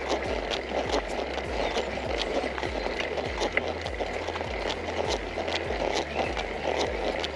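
Road bicycle climbing a steep hill: steady road and wind noise with a regular ticking and low thumping about two to three times a second.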